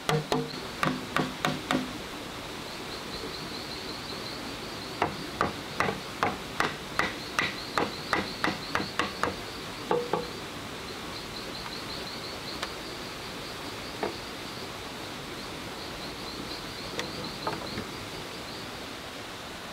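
Quick runs of hollow, ringing knocks on green bamboo tubes as a bamboo frame is knocked together, in the first two seconds and again from about five to ten seconds in, with a few single knocks later. Behind them an insect chirps in short bursts of high pulses.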